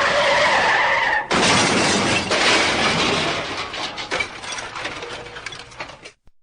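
Car crash sound effect: tyres screech for about a second, then a loud impact of crunching metal and breaking glass, with debris clattering and tinkling as it fades out over the next few seconds.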